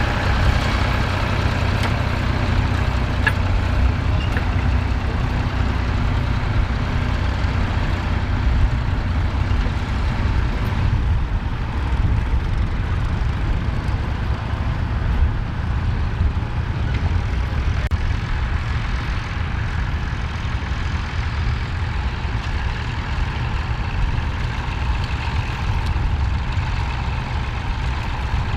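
Ford 4100 tractor's three-cylinder engine running steadily as it pulls a mounted plough through stubble.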